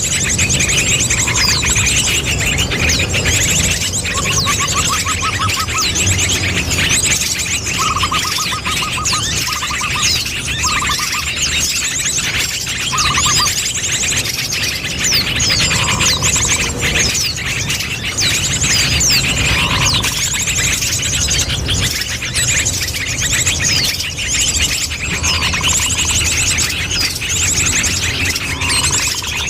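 Bird-lure (pikat) call of many small birds chirping and trilling together, a dense chorus of rapid high trills with short, lower trilled phrases repeating now and then. A steady low rumble runs beneath it.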